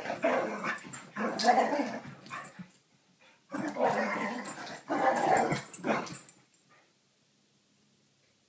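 Two Brittany dogs, an American and a French Brittany, growling and snarling at each other while play-fighting, in two long bouts with a short gap between them; the second bout ends about six seconds in.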